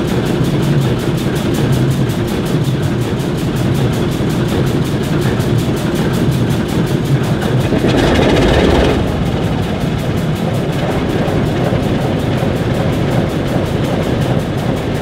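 ALCO diesel switcher engines, turbocharged six-cylinder 539s, idling steadily. About eight seconds in, a louder rush lasts for about a second.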